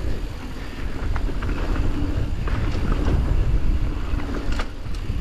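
Wind buffeting a GoPro's microphone during a mountain bike descent, with a steady low rumble of tyres rolling over the dirt trail and scattered sharp clicks and rattles from the bike.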